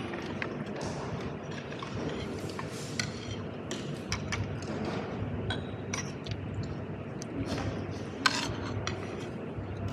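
Metal fork and spoon scraping and clinking on a ceramic plate while cutting duck and scooping rice, in scattered light clicks with one sharper clink about eight seconds in.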